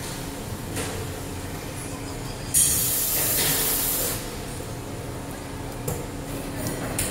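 Faint metal clicks from a Nissan VK56DE VVEL camshaft and rocker assembly being turned by hand, over a steady low hum. About two and a half seconds in, a loud hiss lasts about a second and a half, the loudest sound here.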